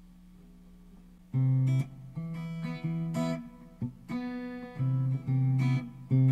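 Firefly FFLS electric guitar being played. After about a second of faint hum it plays a run of short strummed chords and picked notes, then a louder held chord near the end.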